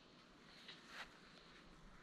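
Near silence: faint outdoor room tone, with two soft, faint taps about a second in.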